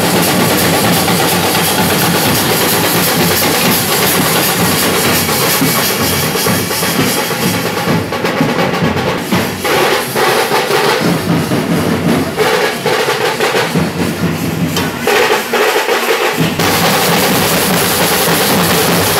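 Loud, fast drumming from a street procession's drum band, in dense rolls. For several seconds in the middle it thins to separate, distinct beats before returning to full rolls.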